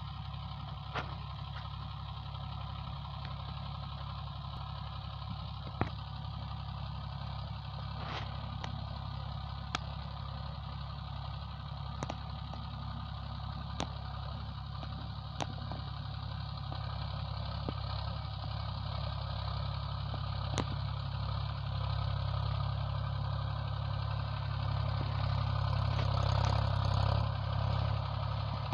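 Mahindra 265 DI XP tractor's three-cylinder diesel engine running steadily while it pulls a rotavator through tilled soil. It grows louder over the last few seconds as it comes close. A dozen or so sharp clicks sound over it.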